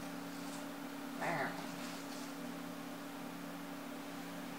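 Steady low electrical hum with faint hiss, broken once about a second in by a short voice-like call.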